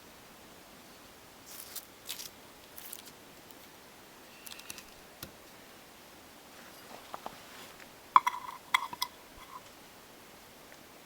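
Small objects being handled: scattered soft rustles and light clicks, then a few sharp clinks that ring briefly, like metal, about eight seconds in.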